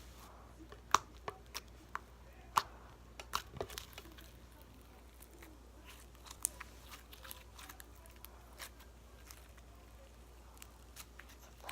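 Putty being squeezed and stretched by hand, giving off small sharp clicks and pops. The clicks come thick for the first four seconds, then thin out to an occasional one.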